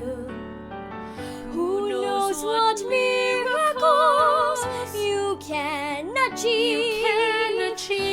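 Two female singers performing a ballad duet with piano accompaniment. For about the first second the piano plays alone, then the voices come in, holding long notes with vibrato.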